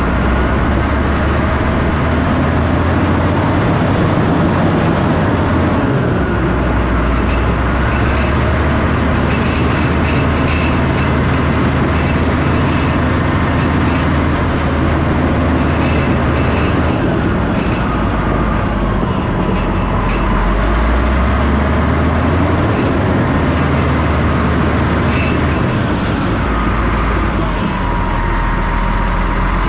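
Caterpillar D6 bulldozer's diesel engine running under load as it pushes topsoil. The low engine note steps up and down every few seconds, with a fainter whine rising and falling over it.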